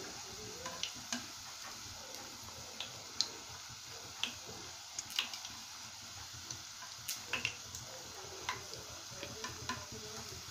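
Jalebi batter frying in shallow hot ghee: a faint, steady sizzle with irregular sharp crackles and pops.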